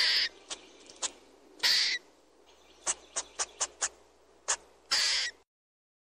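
A squirrel calling: a mix of single sharp chips and longer harsh calls lasting about a third of a second each, with a quick run of five chips about three seconds in. The calls stop abruptly shortly before the end.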